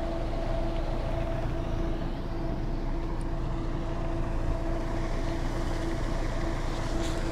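A motor running steadily: a constant low hum with a tone an octave above it, over an even rumbling noise.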